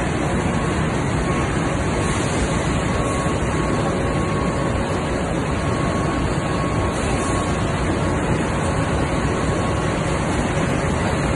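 S&S ZLR flexo folder gluer running in production, with its counter ejector stacking box blanks: a steady mechanical din with a faint high whine running through it.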